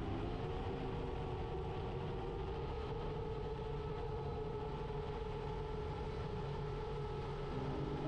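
Motors of a 7-inch FPV drone in flight, a steady whine over rushing wind noise.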